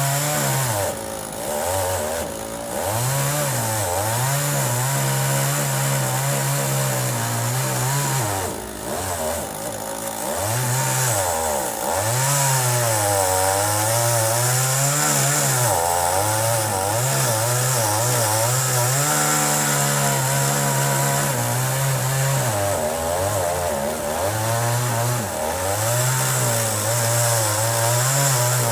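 Chainsaw running at high revs and cutting wood. The engine pitch sags and climbs back several times as the chain bites into the cut, then holds higher and steadier in the second half.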